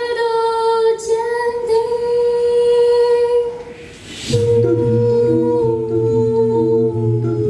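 A cappella choir singing. A high voice holds one long note that fades out about three and a half seconds in. It comes back in about a second later over lower voices holding chords that shift from note to note beneath it.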